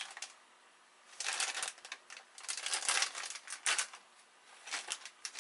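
Clear plastic bags of small electronic parts crinkling and rustling as they are handled and moved, in a few bouts starting about a second in.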